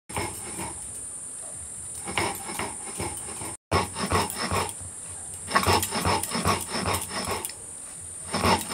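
Grinding stone (nora) rubbed back and forth over sugar on a flat stone slab (shil): a gritty rasping in irregular runs of strokes as the sugar is ground to powder. A steady high hiss runs underneath, and the sound cuts out for a moment about a third of the way in.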